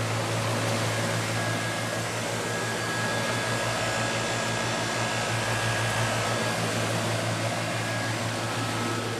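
2003 American Standard 2-ton central air conditioner condensing unit running: a steady low hum from its reciprocating compressor under the even air rush of the condenser fan.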